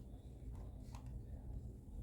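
Faint low hum of room tone with one soft tick about a second in, from handling the just-opened cardboard razor box.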